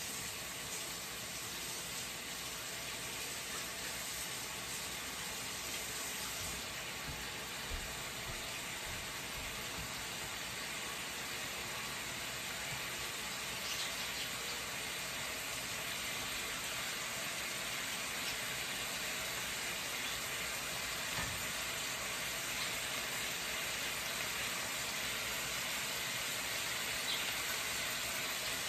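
Beef slices frying in a stainless steel pan on a gas burner: a steady sizzle that grows a little louder toward the end, with a few faint clicks.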